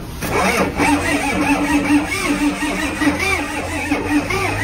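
Used diesel engine on a test stand being started: it catches just after the start and keeps running loudly with a steady note.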